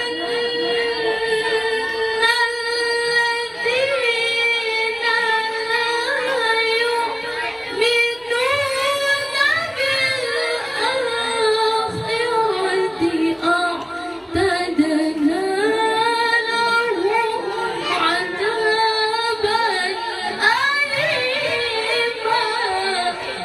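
A woman reciting the Qur'an in the melodic, drawn-out tilawah style. Her high voice holds long notes that slide and waver, with short pauses for breath.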